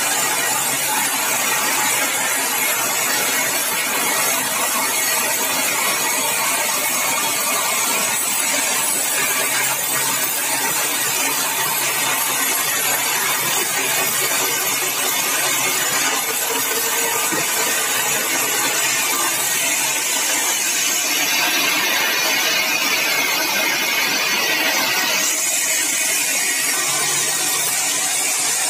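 Sawmill saw running and cutting through a yellow balau (bengkirai) hardwood log: a steady, dense mechanical noise over a constant low hum. The high hiss changes about three-quarters of the way through.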